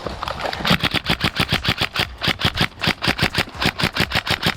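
Airsoft gun firing a sustained full-auto stream of sharp, evenly spaced shots, about seven a second, starting under a second in and keeping on.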